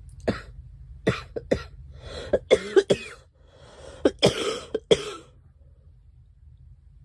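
A girl coughing in two fits: a run of short, sharp coughs, then after a pause of about a second a second bout of coughs that ends about five seconds in.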